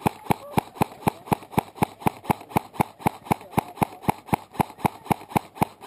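Airsoft rifle fired shot after shot at a steady pace of about four sharp snaps a second.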